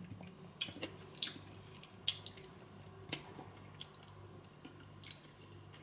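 Faint, scattered lip smacks and mouth clicks of someone tasting spaghetti sauce from a plastic spoon, about seven short clicks spread over several seconds.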